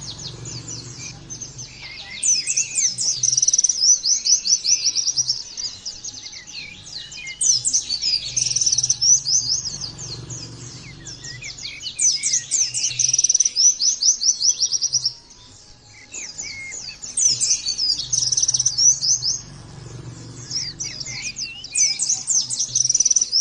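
White-eye (pleci) singing in repeated bouts of fast, high twittering trills, each bout two to three seconds long with short pauses between.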